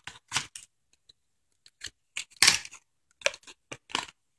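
Clicks, taps and a brief scraping rustle of a clear plastic puzzle box being opened by hand, with the loudest scrape about halfway through.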